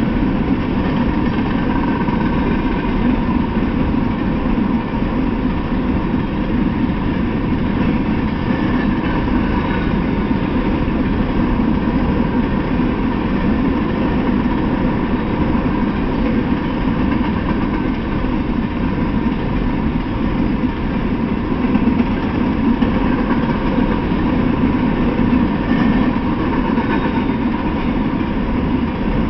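Freight train of open-top hopper cars rolling past: a steady, unbroken rumble of steel wheels on the rails.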